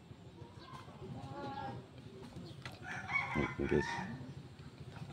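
Rooster crowing faintly in the background: a softer call about a second in, then a louder, longer crow about three seconds in.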